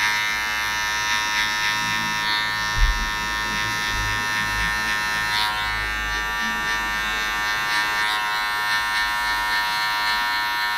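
Electric hair clipper running steadily with an even buzz as its blade cuts short hair on the side of the head during a fade. There is a brief low bump about three seconds in.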